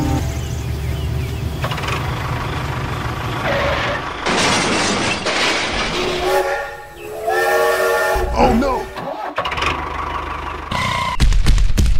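Dubbed sound effects for a toy collision: a low train-like rumble, a loud crash about four seconds in, a short voice exclaiming around six to eight seconds, then a small engine running, louder near the end.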